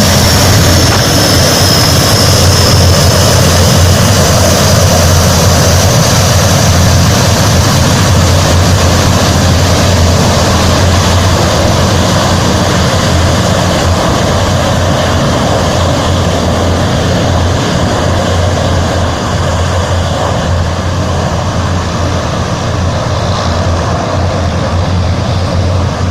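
Antonov An-12's four Ivchenko AI-20 turboprop engines running loud and steady, with a deep hum under a high whine that dips slightly in pitch over the first few seconds. The sound slowly grows fainter.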